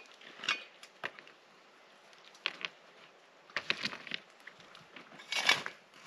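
Metal shovel scraping and scooping ash and gravel in a stone fire ring, in several short separate strokes, with a cluster of strokes just before four seconds in and the loudest, longest scrape about five and a half seconds in.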